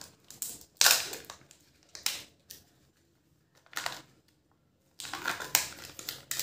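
Plastic Kinder Joy egg being pulled apart and its foil-film seal peeled back: a few short clicks and rustles, then a longer stretch of crinkling near the end.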